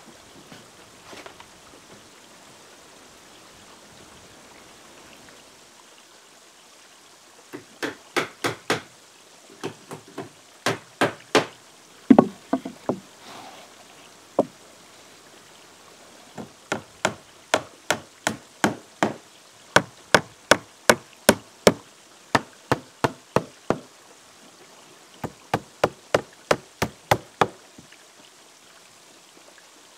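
Hammer nailing wooden shingles onto a roof: runs of sharp knocks, two or three a second, with short pauses between runs, beginning about seven seconds in.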